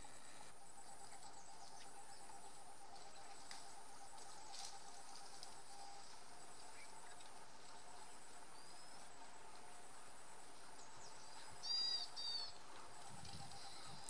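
Insects calling steadily, a high pulsing trill over a lower pulsing buzz, with a bird giving two short, loud calls about twelve seconds in.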